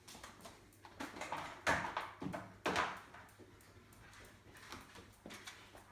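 Two sharp knocks about a second apart, among fainter clatter and handling noise.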